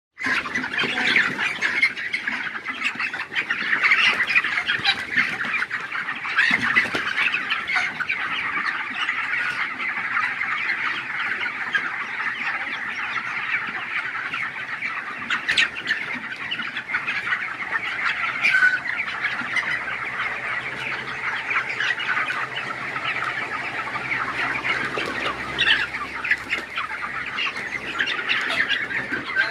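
A large flock of chickens calling all at once in a dense, continuous din, with a few louder squawks standing out now and then.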